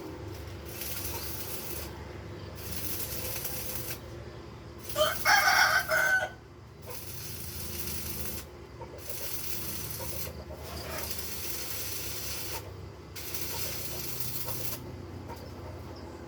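A rooster crowing once, about five seconds in, over a steady hiss that comes in long stretches with short breaks every second or two.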